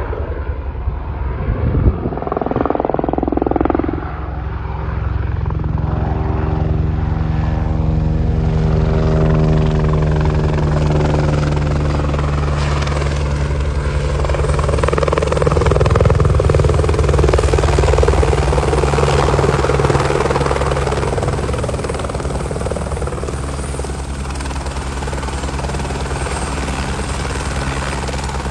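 Military helicopter flying past with a steady rotor chop and engine drone. It grows louder toward the middle, then slowly fades.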